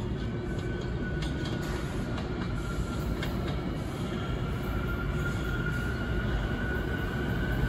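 New York City Subway A train approaching through the tunnel into an underground station. Its rumble grows steadily louder, with a thin, steady, high-pitched squeal and a few sharp clicks in the first few seconds.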